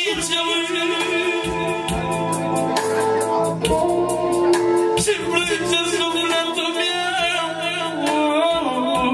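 Live Romanian lăutari party music: a male singer singing an ornamented, wavering melody into a microphone over electronic keyboard and a steady beat.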